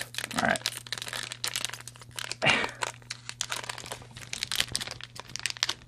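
Foil wrapper of a Magic: The Gathering booster pack crinkling and tearing as it is worked open by hand, a dense run of small crackles that is hard to get open.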